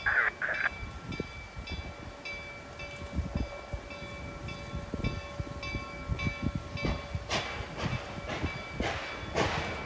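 Reading & Northern T-1 No. 2102, a 4-8-4 steam locomotive, ringing its bell steadily at about two strokes a second. From about seven seconds in, it starts off with loud, slow hissing exhaust chuffs as it works its cylinder cocks open.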